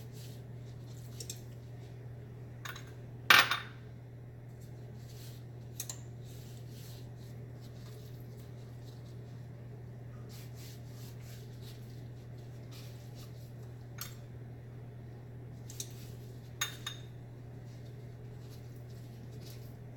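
Scattered light clinks and taps of kitchen utensils and dishes during food prep, the loudest about three seconds in, over a steady low hum.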